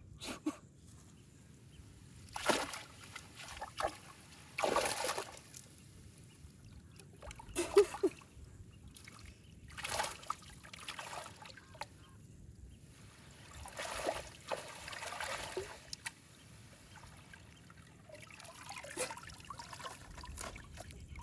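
Water splashing and dribbling in short, irregular bursts every few seconds, over a faint steady background.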